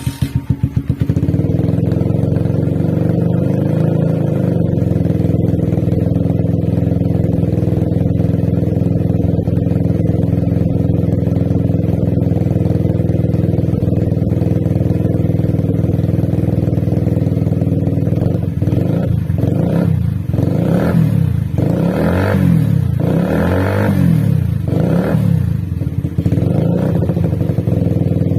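Suzuki Satria FU 150's single-cylinder four-stroke engine starting up and settling into a steady idle. About two-thirds of the way through, the throttle is blipped several times in a row, each rev rising and falling, before it drops back to idle.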